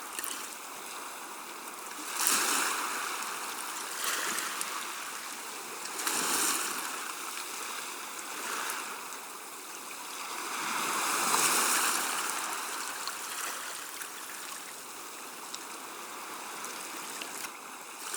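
Gentle sea waves washing onto the shore. Each wash swells and fades every two to three seconds, and the loudest comes a little past the middle.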